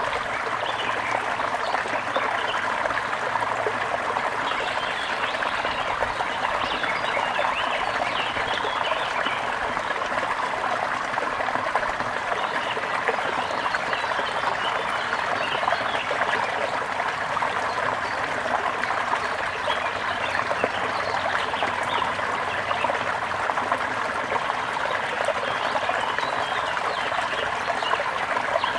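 Steady trickling and babbling water of a small stream, with faint bird chirps mixed in.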